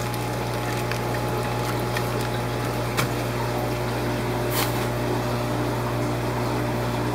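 Steady low hum and water noise of aquarium pumps running in a fish room, with a couple of faint clicks partway through.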